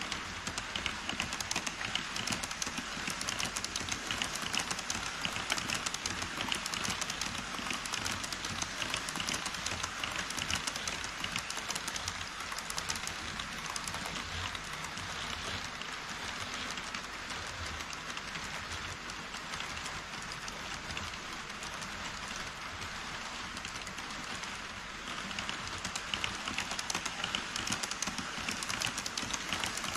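HO-scale model trains running over a truss bridge: a fast, dense clicking and rattling of the wheels on the track. A freight train of tank wagons is heard first, and the clatter swells again about 25 s in as an E5 Shinkansen model crosses.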